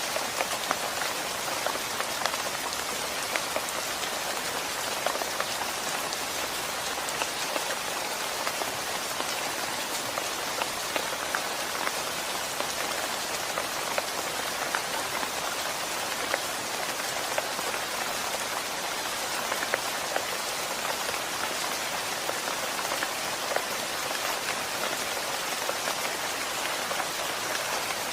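Steady rain falling, a dense hiss with many individual drops ticking sharply on a hard surface.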